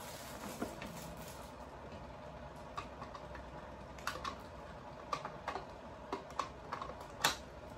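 Light plastic clicks and taps at irregular intervals, a dozen or so, from parts of a capsule coffee machine being handled, with the sharpest click near the end.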